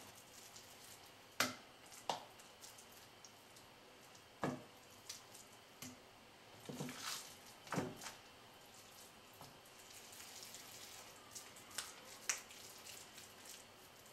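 Raw ground-beef meatballs being rolled between the palms and set down on a plate: scattered soft, wet slaps and clicks over a quiet room.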